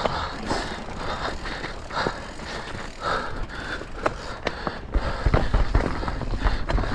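Mountain bike ridden fast over rough trail, with irregular knocks and rattles from the tyres and bike hitting the ground. The low rumble grows heavier about five seconds in.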